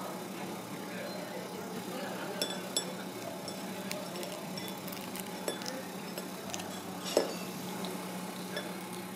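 A few sharp, light clinks of dishes and tableware over a steady low hum and faint room murmur; the loudest clink comes about seven seconds in.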